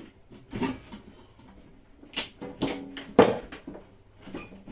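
Kitchen things being handled on a counter: a few irregular knocks and clatters, the loudest a little past three seconds in.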